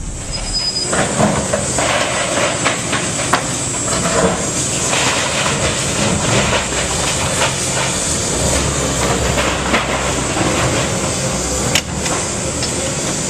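Building demolition: broken masonry and debris clattering and crashing again and again over a steady rushing noise, with one sharp crack near the end.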